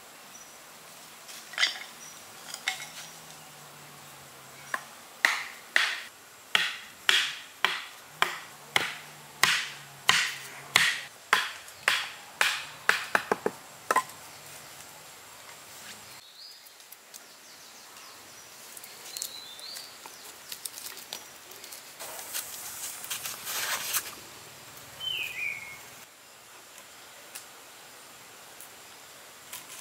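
A run of sharp knocks, about one to two a second, quickening before they stop about halfway through; afterwards quieter rustling and a few faint high chirps.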